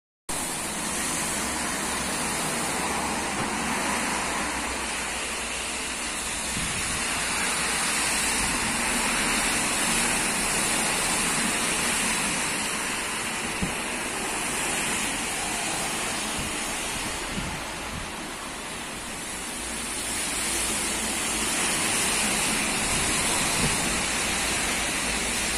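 Heavy rain pouring down in strong gusting wind, a steady rushing hiss that slowly swells and eases.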